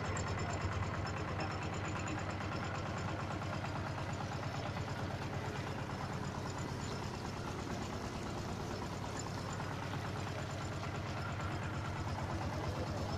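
Small passenger boat's outboard motor running steadily under way, a fast even beat that holds throughout.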